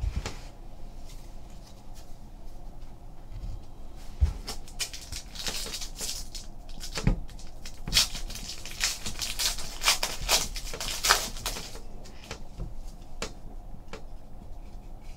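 Hands handling a Donruss basketball trading-card pack and its cards. About five seconds in, a stretch of crinkling and tearing is heard as the wrapper is opened. Around it, sharp clicks and taps come from the cards being squared up and set down on the table.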